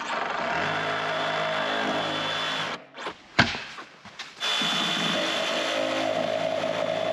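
Cordless drill boring through the wall of a corrugated plastic septic-tank riser, running steadily. It stops about three seconds in, there is one sharp click, and it starts again and runs on.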